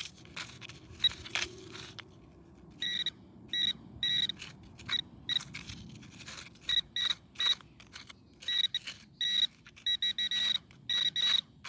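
Garrett Pro Pointer pinpointing probe beeping in short, irregular bursts at one high pitch as it is worked through the loose soil of a freshly dug hole, its alert that metal is near its tip. In the first two seconds it scrapes and knocks in the dirt.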